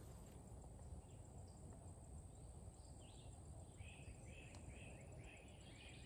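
Near silence outdoors, with a faint songbird singing a quick run of short, repeated chirps from about halfway in.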